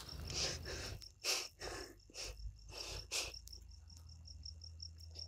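A cricket chirps steadily in a high, even pulse, about five chirps a second. Over it, in the first three seconds or so, come several swishing footsteps through tall grass, the loudest sounds here.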